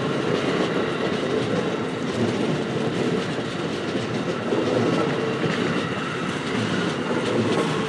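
Amtrak Amfleet passenger coaches passing close by at speed: steady wheel-on-rail running noise with a few faint clicks over the rails.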